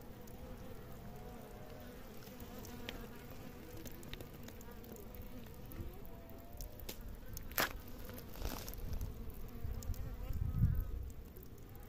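A buzzing insect holds a steady hum throughout. A sharp click comes about seven and a half seconds in, and a low thud follows near the end.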